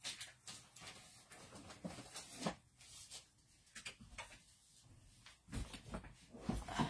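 Faint rustling and light knocks of paper and craft supplies being handled while a sheet of cardstock is fetched, with a few heavier thumps near the end.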